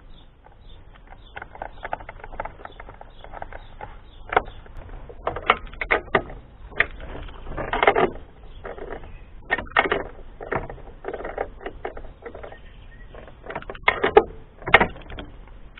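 Screwdriver and metal parts clicking and knocking on a motorcycle's frame and air box as parts are screwed back on: scattered light clicks with a few louder knocks, some in quick clusters.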